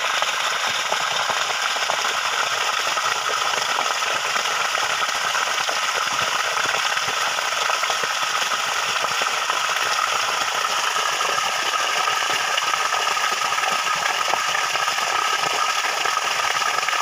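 Steady hiss and splash of a full stream of water gushing from a submersible borewell pump's discharge pipe and pouring onto the ground.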